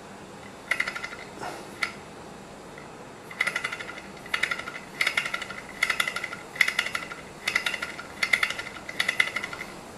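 Small walking-beam gamma Stirling engine turned over by hand at its flywheel to get it started: each flick gives a short burst of quick metallic rattling from the engine's moving parts, repeating a little faster than once a second from about three seconds in. The engine is stiff and not yet running on its own.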